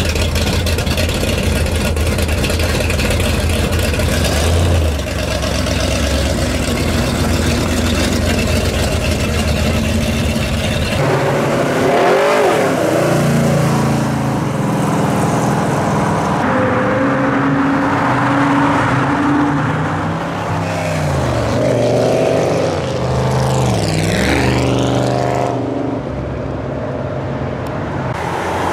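A hot-rod coupe's engine idles with a low, pulsing beat. About eleven seconds in it gives way to classic muscle cars, among them a 1969 Camaro, accelerating away along a road, their engines revving up one after another as they pass.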